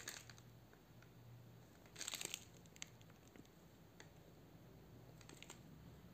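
Faint handling noise from fingers on a small lavalier microphone and its plastic packaging: a short burst of crinkling about two seconds in, then a few light clicks and rustles over a low room hum.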